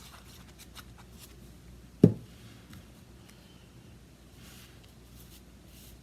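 Paper and craft pieces being handled on a tabletop: small ticks and soft rustles, with one loud dull thump about two seconds in.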